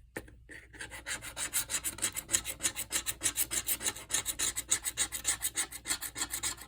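Rapid back-and-forth scratching of a lottery scratch-off ticket, the coin or scraper rasping off the latex coating in quick even strokes, about eight to ten a second.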